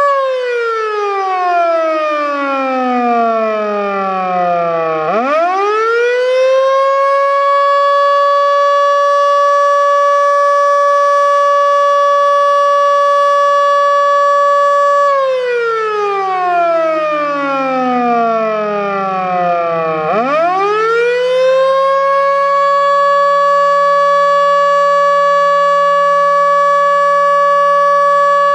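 Federal Signal Model 2 outdoor warning siren sounding its attack signal. Its tone winds down over about five seconds, climbs back up within about two, and holds steady for some eight seconds. It then winds down and up once more and starts to fall again at the end. The bearings are already not too good, in the uploader's words.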